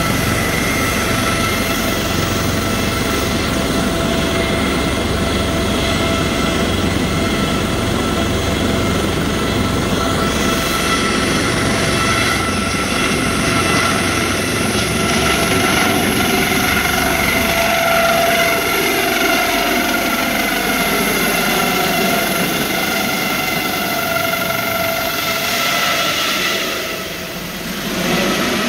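Medical helicopter's engines and rotor running at full power on the pad, then the helicopter lifting off and climbing away overhead. A steady high whine sits over the rotor noise. Partway through, the pitch of the noise sweeps up and down and the low rotor beat fades as it climbs.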